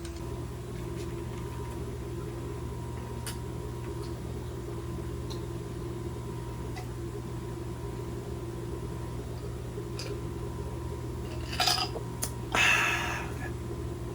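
Steady mechanical hum from a running machine, with a few faint clicks and, near the end, a couple of sharp clinks followed by a brief clatter.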